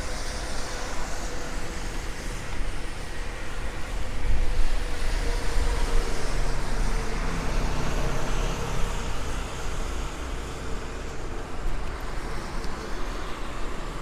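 City road traffic: motor vehicles passing on a street, a low rumble that swells about four seconds in and eases off after about nine seconds, with a faint steady whine underneath.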